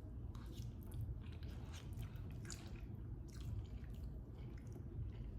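Faint wet chewing and smacking mouth sounds of a person eating chicken noodles in broth, as a scatter of short clicks over a low steady hum.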